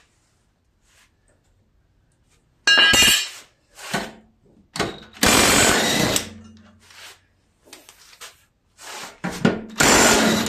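Hand tools working on the mower's steel blades and their 5/8-inch blade bolts: metal clanking and scraping in three loud noisy stretches of about a second each, after a quiet start.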